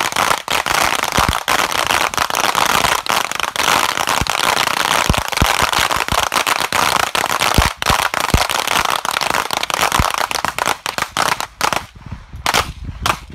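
Many Glock pistols firing at once along a firing line: a dense stream of overlapping shots that thins to a few separate shots near the end.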